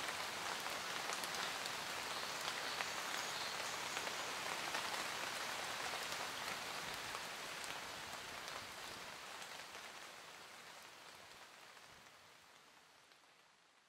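Steady rain falling, an even hiss flecked with the ticks of individual drops. It fades out gradually over the second half to near silence.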